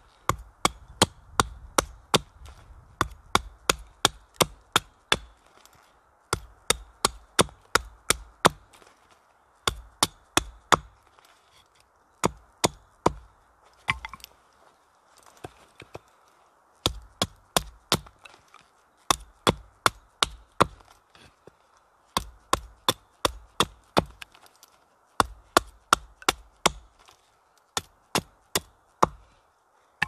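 Hatchet chopping a point onto the end of a wooden stake held upright on a stump: sharp wood-on-steel strikes in quick runs, about three a second, broken by short pauses between runs.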